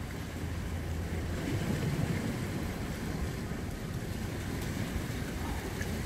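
Steady wind noise on the microphone, over the wash of sea waves against the rocks.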